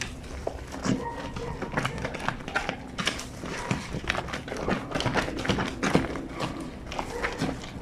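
Wet fleece sheet being hand-scrubbed with powdered detergent on a granite washboard sink: irregular wet slaps and squelches, several a second.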